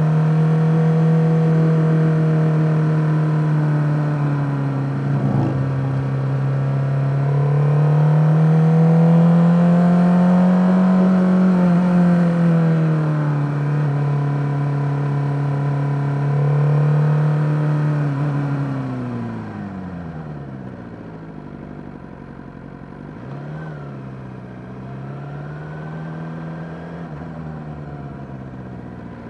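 Suzuki GSX-R600's inline-four engine running under way, recorded on the bike: a steady drone whose pitch rises a little and settles back, then drops sharply and goes quieter about two-thirds through. Afterwards it runs lower, with two short rises in pitch near the end, and there is a brief knock about five seconds in.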